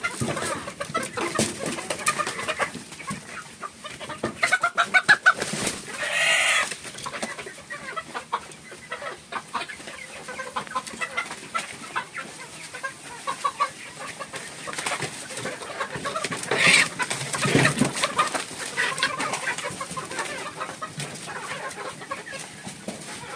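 A flock of chickens clucking and calling, with louder calls about six seconds in and again around seventeen seconds.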